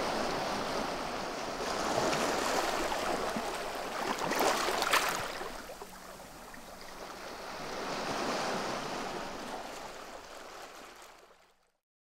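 Sea lapping on shingle at the foot of a launch ramp: small waves washing in and drawing back, swelling and ebbing every few seconds, with a sharper wash about five seconds in. The sound fades out near the end.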